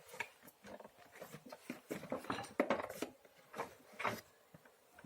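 Scattered light clicks, taps and rattles of plastic parts being handled as the cord-reel assembly is worked out of a vacuum cleaner's housing, with a few sharper knocks about midway through.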